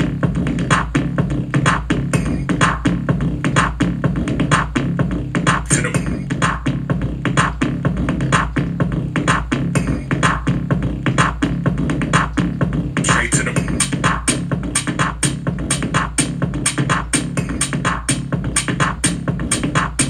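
Electronic dance music played through an Ant Esports GS270 2.1 speaker set (subwoofer and two satellites), with a heavy bass line under a steady beat. About thirteen seconds in, brighter high percussion joins the beat.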